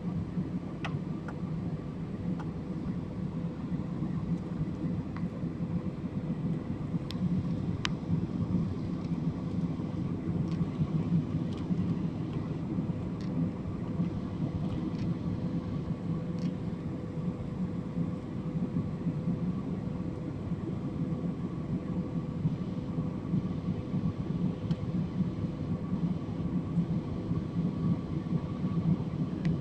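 Airliner cabin noise from a window seat: a steady low drone of engines and airflow, with a faint steady hum on top. A few small ticks come in the first several seconds.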